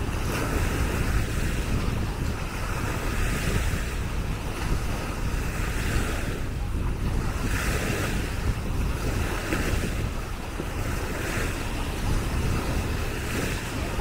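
Small Baltic Sea waves breaking and washing up a sandy shore, swelling and fading every second or two, with wind rumbling steadily on the microphone.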